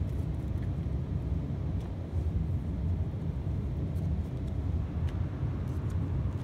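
A steady low rumble, with a few faint clicks of trading cards being flicked through by hand.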